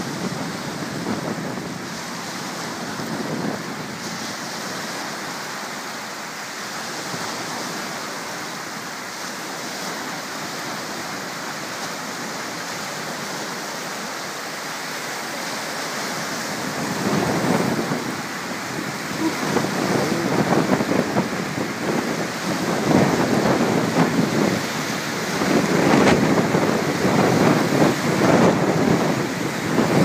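Strong wind blowing over a lake, with small waves washing onto a pebble shore. About halfway through the gusts pick up and buffet the microphone in rumbling surges.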